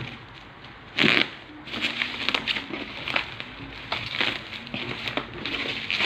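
Packaging being handled during an unboxing: crinkling and crackling, with a louder rustle about a second in followed by many short irregular crackles.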